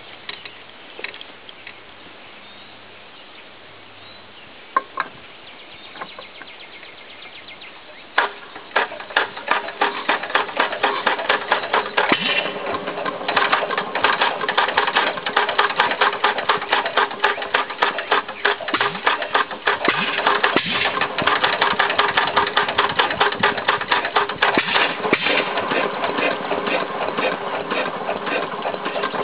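Witte B oilfield engine, choked and set to run on gasoline, being started. After a few faint clicks it begins a fast, even run of sharp mechanical strokes that grows louder and denser as it goes.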